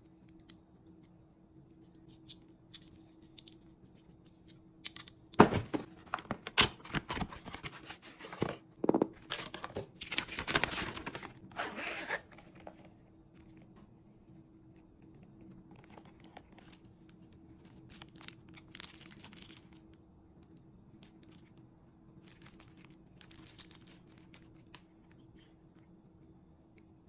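Unboxing handling noise: about five seconds in, a run of loud ripping and crinkling starts as packaging and the zipper of a hard-shell sunglasses case are pulled open, ending a little after halfway. Fainter rustling and handling follow as the sunglasses are lifted out of the case.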